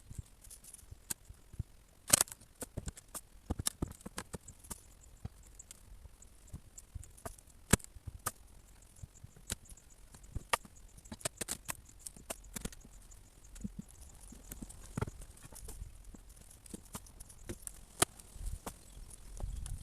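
Scattered, irregular knocks and clicks of wood and tools as the old deck boards of a small wooden platform are worked loose, with a sharper knock about two seconds in and another near eight seconds.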